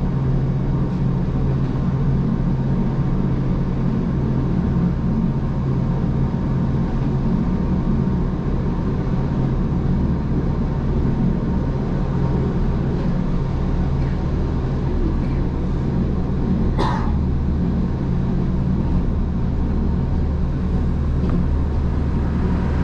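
Gornergrat Bahn electric rack-railway train running downhill: a steady rumble and hum from the moving train. One brief sharp noise comes about 17 seconds in.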